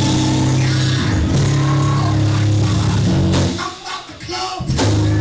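Live band music with a loud, sustained bass line that steps between notes. It thins out about three and a half seconds in, leaving sharp percussive hits before the bass returns.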